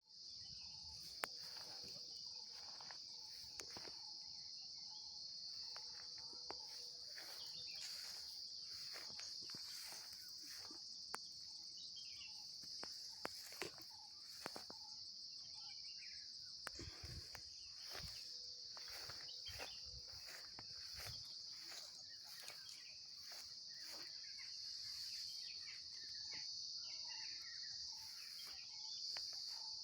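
Insects, crickets or similar, chirring in a steady high-pitched drone, with scattered faint clicks and rustles over it.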